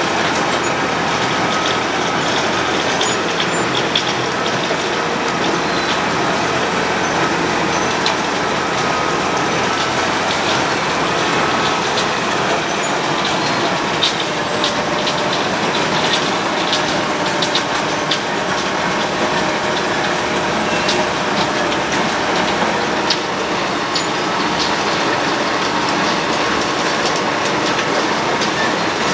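Road planer milling the asphalt road surface: a steady, loud grinding noise with a dense scatter of sharp clicks and crackles throughout.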